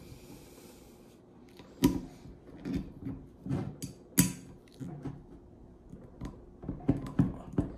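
Leatherman Juice multitool's corkscrew and lever being worked on a wine bottle to draw the cork: irregular sharp clicks and knocks of metal against the bottle, the loudest about two and four seconds in, after a brief faint hiss at the start.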